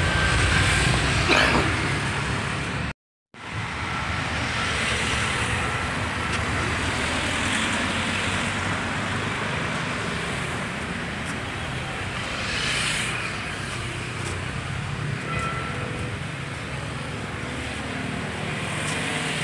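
Street traffic passing: a steady wash of car noise, with one vehicle going by more loudly about 13 seconds in. The sound cuts out completely for a moment about three seconds in.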